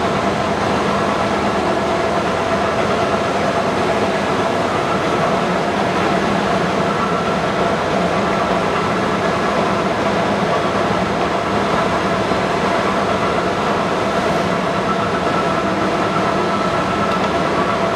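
Leblond NK 36 x 132 engine lathe, driven by its 50 hp main motor, running its spindle at its top speed of 500 RPM. Its headstock gives a steady mechanical hum with a few held tones that does not change.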